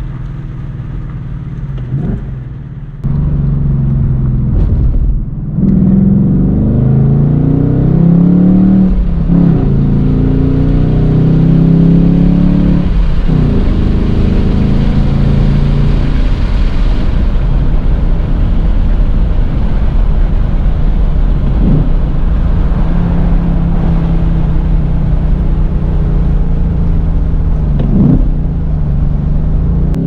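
Ford Mustang S650 GT's 5.0-litre V8 accelerating hard. Its pitch climbs and drops back at each upshift several times, then it holds a steady drone before rising again near the end.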